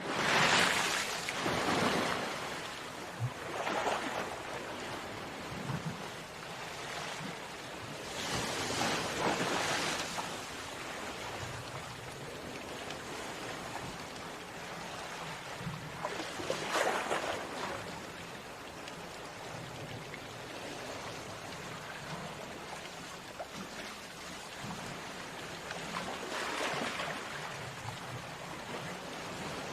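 Sea waves breaking on a shore: a steady wash of surf with louder breakers swelling and fading about every four to ten seconds.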